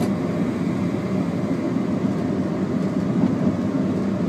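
Steady running noise of an InterCity 125 diesel train heard from inside its driving cab, an even rumble with no break or change.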